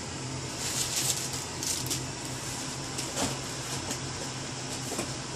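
Plastic blister-card toy packaging rustling and clicking as it is handled and shifted, a few light crinkles and taps over a steady low hum.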